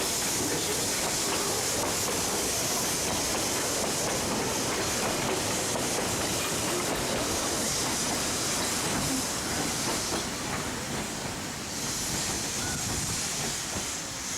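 Na class narrow-gauge steam locomotive hissing steam steadily, easing a little about ten seconds in.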